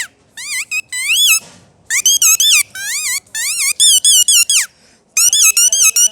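Handmade mouth-held whistle, sounded with the tongue, imitating bird calls: high, fast-warbling chirps in four short phrases with brief pauses between them.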